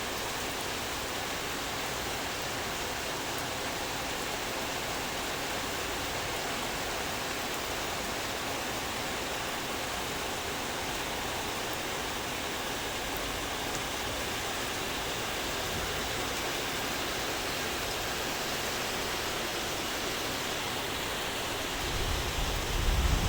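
Steady rain falling, an even hiss with no letup. Near the end a louder low rumble comes in.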